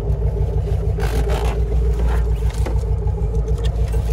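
A vehicle engine idling with a steady, evenly pulsing low rumble. Brief scrapes come about a second in and again around two seconds in.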